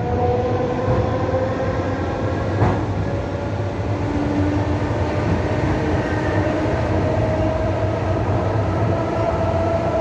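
Moving train running steadily: a continuous rumble with several whining tones that slowly drift in pitch, and a single wheel clack about two and a half seconds in.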